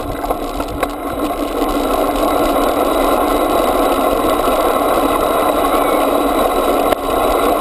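Small bike wheels rolling on a paved footpath at riding speed: a steady, rough rolling rattle that grows louder about a second in as the pace picks up.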